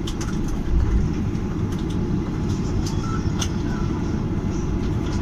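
Steady low rumble of an airliner rolling on the ground, heard inside the passenger cabin, with a few brief rattling knocks.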